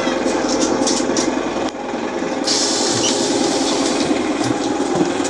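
BTZ-5276-04 trolleybus air compressor running at a stop with a steady, fast rattling buzz. A steady hiss joins about halfway through, and there are a few sharp clicks.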